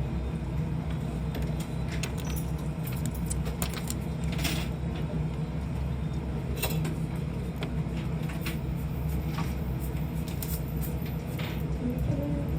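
Steady low hum with scattered light clicks and ticks.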